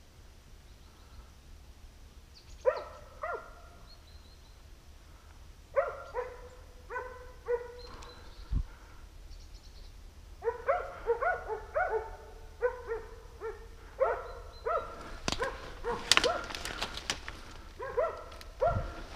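Hunting dogs barking at a wild boar in strings of short, fairly high barks, in bouts of several barks with brief pauses. Sharp crackling of brush and twigs joins in about three-quarters of the way through.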